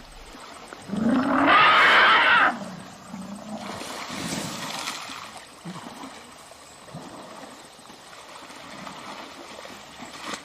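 Elephant giving one loud call, about a second and a half long, starting about a second in and rising slightly in pitch, followed by quieter low calls.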